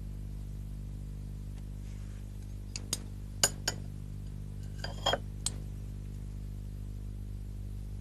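Knives and forks clinking against china plates and glassware at a dinner table, a handful of sharp clinks between about three and five and a half seconds in, over a steady low hum.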